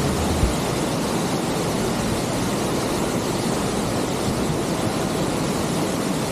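Waterfall: a steady, even rush of falling water close by.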